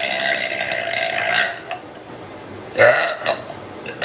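A woman's long, drawn-out burp on one steady pitch that ends about a second and a half in, followed about three seconds in by a second, shorter burp.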